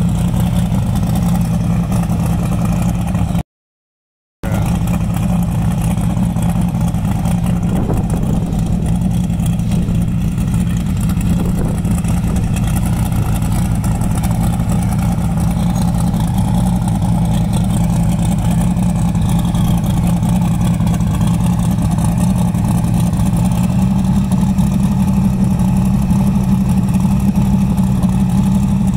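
Twin-turbo engine of a 1963 Chevy Nova SS drag car idling steadily. The sound cuts out completely for about a second near four seconds in.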